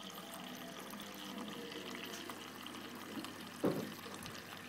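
Thin stream of water from a small pump-fed fountain pouring steadily into a miniature trough, with one short thump about three and a half seconds in.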